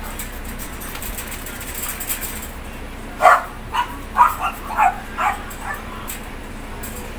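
A dog barking in a quick run of about seven short barks, starting about three seconds in, over a steady background hiss.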